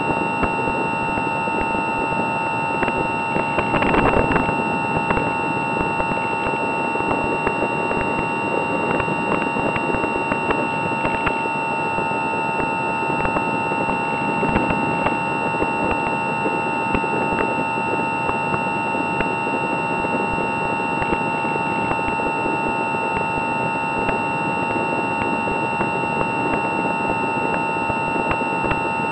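Electric motor and pusher propeller of an Easy Star 2 RC foam plane whining steadily in flight, with wind rushing over the onboard camera's microphone.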